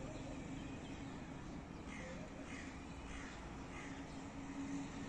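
Crows cawing faintly, four caws in quick succession about halfway through, over a steady low hum.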